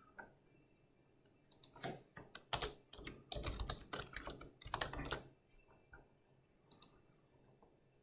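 Typing on a computer keyboard: a quick run of keystrokes lasting about four seconds, then a few fainter, scattered clicks.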